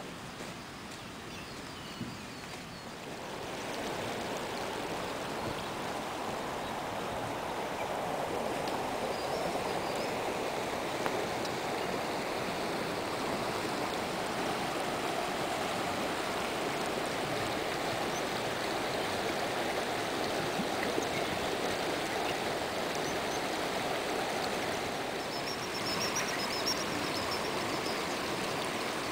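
Rushing water of a fast mountain river, the Azusa River, a steady rush that grows louder about three to four seconds in and then holds.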